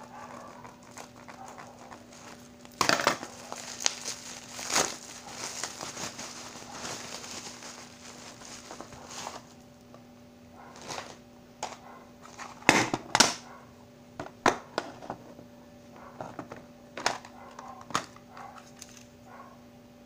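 Bubble-wrap packaging crinkling and crackling as it is handled and pulled open, followed by several sharp clicks and knocks of plastic cassette cases being handled in the second half.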